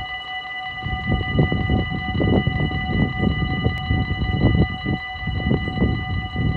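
Dutch railway level-crossing warning bell ringing steadily in a high tone as the barriers come down, signalling an approaching train. Under it, an irregular gusting low rumble that swells about a second in.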